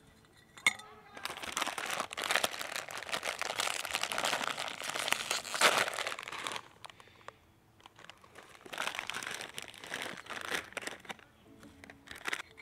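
Plastic instant-ramen wrapper crinkling and tearing as it is opened, in two long bouts with a pause between. A light metal clink from the cook pot's lid comes just before the first bout.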